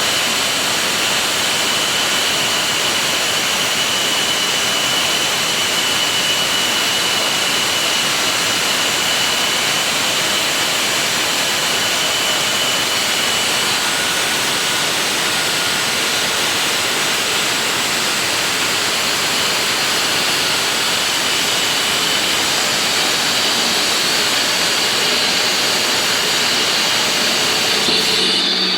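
Concrete-cutting machine running steadily while cutting concrete: a dense, unbroken hiss and grind with a thin high whine on top.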